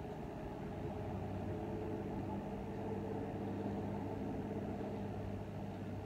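A steady low mechanical hum from a running motor, with a low droning tone that settles in about a second in.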